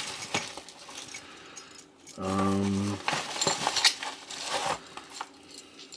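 Metal locks and keys clinking and knocking as they are handled and taken out of a package, in scattered sharp clicks. About two seconds in, a short hummed sound from a man's voice, the loudest part.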